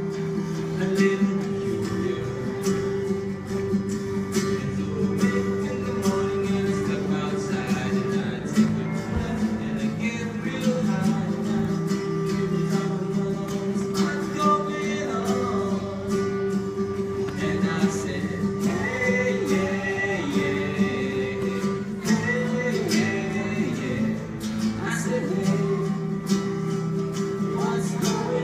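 Several acoustic guitars strummed together, playing a steady chord pattern with held, ringing chords.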